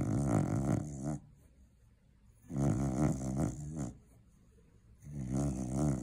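Cocker spaniel snoring loudly in its sleep: three long snores about two and a half seconds apart, each lasting just over a second, with quiet breaths between them.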